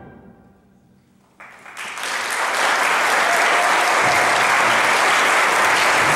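The last chord of a brass-heavy ensemble dies away in the hall's reverberation, and after a moment of near silence an audience breaks into applause about a second and a half in, building quickly and then holding steady.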